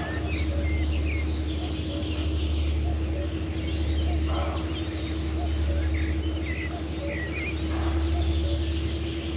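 Dawn chorus of birds: many short chirps and calls, with two louder calls about four and eight seconds in. Underneath runs a steady low drone that swells and fades about every two seconds.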